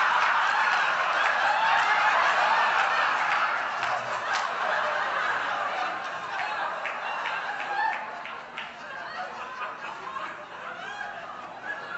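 A large audience laughing heartily, loud at first and gradually dying away.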